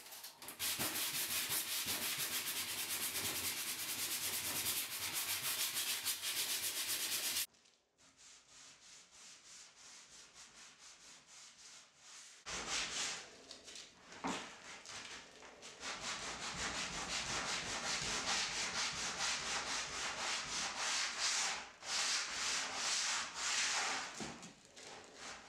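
Wood being hand-sanded with 400-grit sandpaper on a sanding block: continuous rubbing strokes that cut off abruptly about seven seconds in, then resume after a quieter few seconds in uneven spells.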